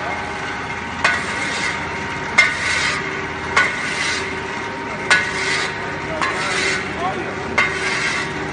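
Pellet-making machine running: a steady motor hum, with a click and a gritty hiss about every second and a half.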